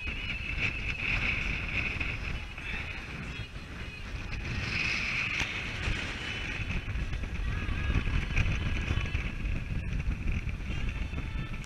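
Wind buffeting the microphone over a steady rush of water past the hulls of a Lagoon 450 sailing catamaran under way, as a storm front arrives.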